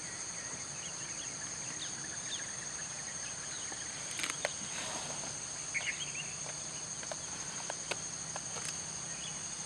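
Jungle insects keep up a steady, high-pitched drone, with scattered short bird chirps and a few sharp clicks in the second half.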